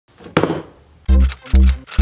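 Intro music: a short noisy burst near the start, then about a second in a bass-heavy beat whose notes land roughly twice a second.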